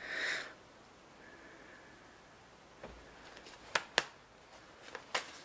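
Tarot cards being handled on a table: a short rustle at the start, then a few sharp card clicks and taps, several between three and four seconds in and one more near the end.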